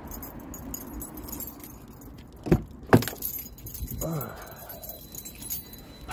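Handling and rustling noise as a man climbs into a small car, with two sharp thumps about half a second apart, the car door being pulled shut.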